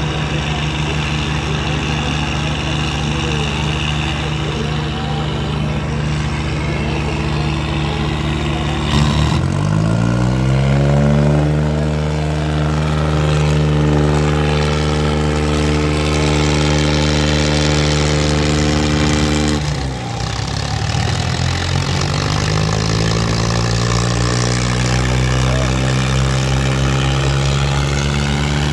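Tractor diesel engines of a New Holland 3630 Super and a Swaraj 744 FE straining against each other in a tug-of-war, at full throttle under heavy load. The engine note runs steady, then revs up steeply about nine seconds in and holds high. It drops suddenly about twenty seconds in, then climbs again.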